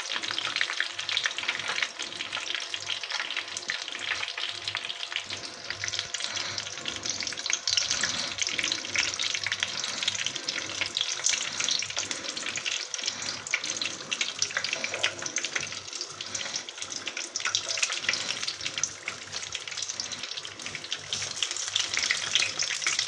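Hot oil crackling and bubbling steadily around chicken samosas and spring rolls deep-frying in a pan, moved about with metal tongs. The pieces are browned and fully cooked, ready to come out of the oil.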